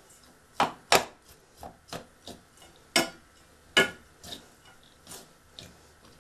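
Metal spoon scraping and clinking against a stainless steel bowl while stirring a thick, crumbly gram-flour mixture: about a dozen irregular clinks, the loudest about a second in and again near three seconds.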